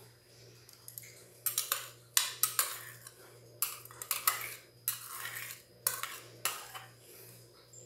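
Metal spoon scraping and knocking against a small clay bowl, about ten short strokes starting a second and a half in, as chopped onion is scraped out of it.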